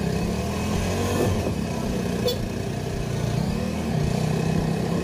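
Motorcycle engine running close by, its pitch rising and falling with the throttle.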